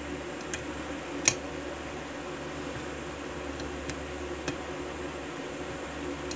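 Small, sharp metallic clicks from a lock pick working the spool pins of a Securit five-pin euro cylinder under top tension: a few scattered clicks, the loudest about a second in and another at the very end. A steady background hum runs underneath.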